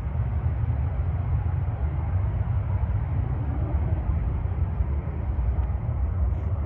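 Jet airliner's engines at takeoff (TOGA) thrust: a steady, rough rumble.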